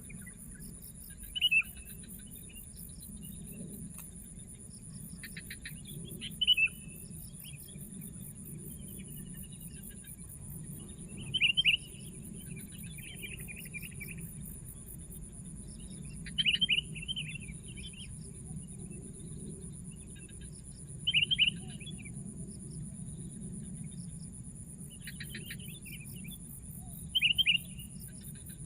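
Sooty-headed bulbul giving short clusters of loud, falling chirps, six times at roughly five-second intervals. A steady high insect trill runs underneath.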